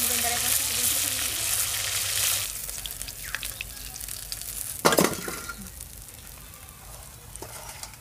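Fish pieces sizzling as they fry in hot oil in a steel wok, loudest for the first two and a half seconds and then fainter. About five seconds in a metal ladle gives one sharp clink against the steel, with a few lighter clinks after.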